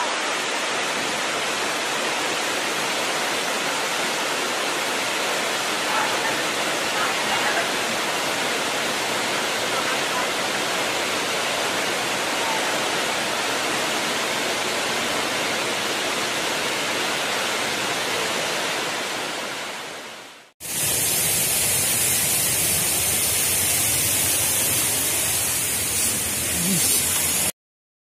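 Waterfall crashing into its plunge pool: a steady, loud rush of falling water that fades out about twenty seconds in. After a cut, a brighter steady hiss follows.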